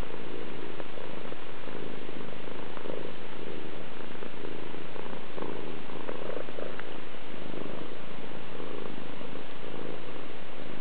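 Domestic cat purring steadily right at the microphone, the purr swelling and easing about once a second with its breathing, as it is stroked and scratched on the head and chin.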